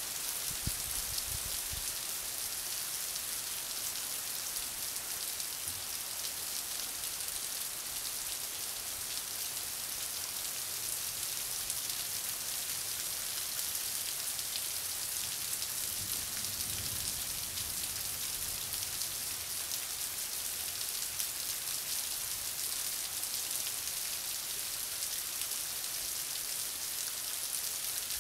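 Heavy rain falling on a street and parked cars: a steady, dense hiss that keeps up without a break.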